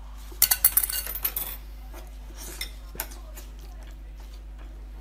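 Close-miked eating sounds of spicy octopus: a quick run of sharp clicks and crackles about half a second in, lasting about a second, then a softer cluster and one more click around three seconds.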